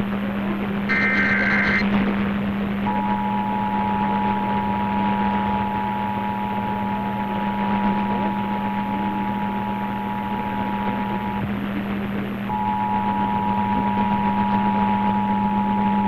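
Emergency Alert System Required Monthly Test received on AM radio. It opens with the last short header data burst. About three seconds in, the two-tone attention signal begins and holds for about eight seconds, stops briefly, then sounds again. A steady hum and static from the AM reception run underneath.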